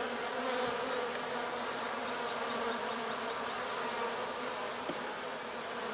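Honey bees buzzing in a steady hum around the leftover comb of a removed hive.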